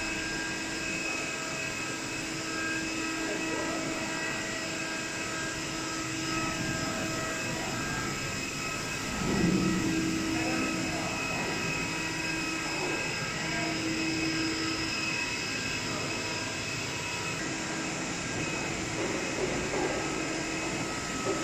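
A screw air compressor running: a steady mechanical whine made of several held tones over an even hiss. About nine seconds in there is a brief louder swell.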